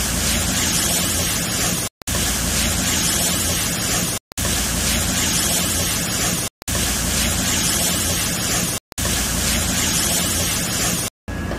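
Oyster mushrooms sizzling as they are stir-fried in a hot pan and turned with chopsticks: a steady hiss, cut by brief silences about every two seconds.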